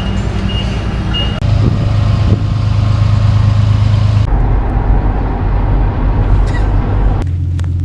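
A truck engine running steadily, a loud low hum. The sound changes abruptly about a second and a half in, again past the halfway point, and near the end.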